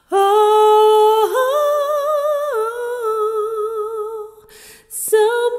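A solo voice singing one long held "Ohh" unaccompanied, with vibrato. The note steps up about a second in and steps back down about a second later. A breath comes near the end before the next line starts.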